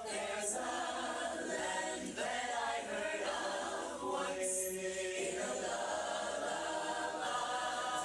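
A choir singing in harmony, with long held notes.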